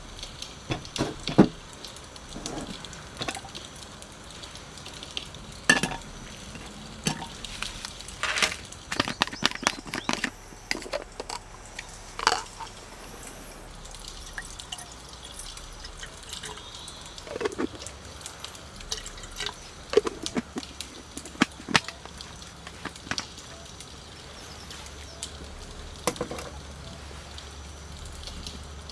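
Metal clinks and knocks of camp cookware as a small gas burner and an aluminium kettle are handled and set up, with water poured from a plastic bottle into the kettle.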